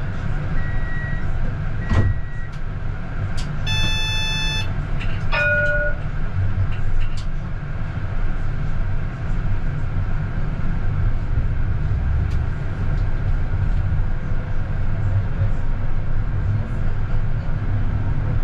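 Steady low rumble of a CAF Urbos 100 tram running along the track. Over the first few seconds there is a series of short, high electronic beeps, and about four seconds in a brief chime-like tone.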